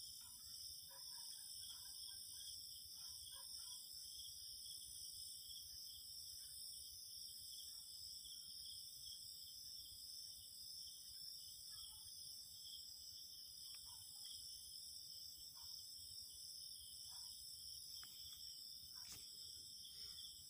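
Faint, steady, high-pitched insect chirring that runs on without a break, with a few soft, scattered ticks lower down.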